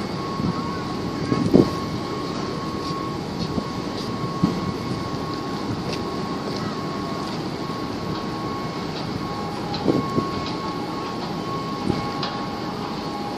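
Steady engine drone mixed with wind on the microphone, with a faint steady whine and a few soft knocks.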